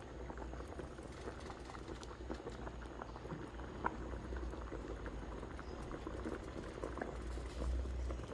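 A pot of food bubbling on the stove, with a steady run of faint, small pops.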